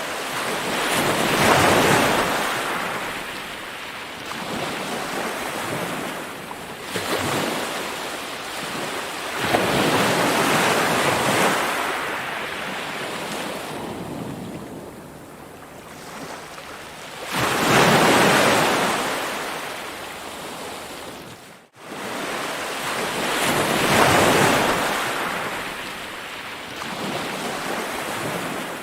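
Ocean surf: waves breaking and washing in, swelling and fading in slow surges several seconds apart. The sound cuts out for an instant about two-thirds of the way through.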